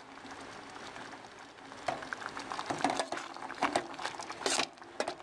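Pot of stewed fava beans (ful) giving soft liquid sounds, then from about two seconds in a metal spoon stirring it, clinking and scraping against the stainless pot in quick irregular knocks.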